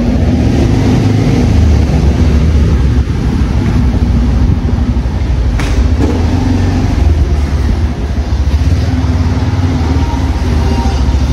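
Vehicle running at low speed down a spiral parking ramp: a loud, steady engine and road rumble, with a single sharp click about five and a half seconds in.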